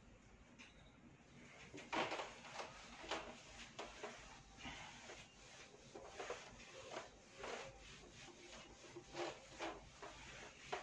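Whiteboard eraser rubbing across a whiteboard in quick back-and-forth strokes, about two a second, starting about two seconds in.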